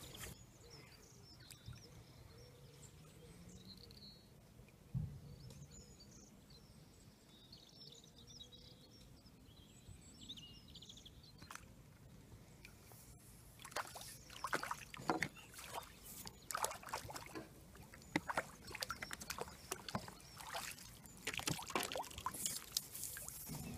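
A quiet lakeside stretch with a few faint high bird chirps and a single low thump about five seconds in; then, from about halfway, irregular splashing and dripping as a landing net is dipped in the lake and lifted out, water running from its mesh.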